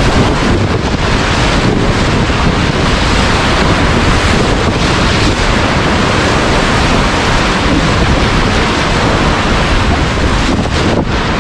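Loud, steady rush of whitewater in a big river rapid, churning and splashing around a cataraft's inflatable pontoons.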